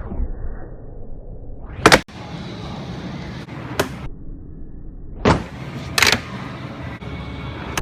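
A handboard (an oversized fingerboard) clacking on a tool box: four sharp hits of deck and wheels landing and striking, the loudest about two seconds in, over a low steady rolling rumble.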